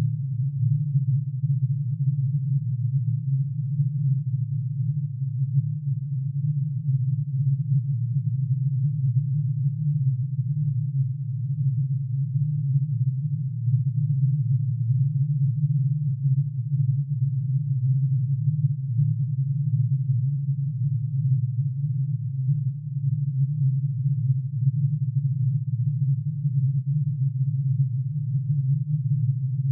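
Synthesised tone built from plutonium's atomic emission spectrum: many sine waves, one per spectral line, pitch-shifted into hearing range and summed into a steady low drone. It does not change in pitch or level.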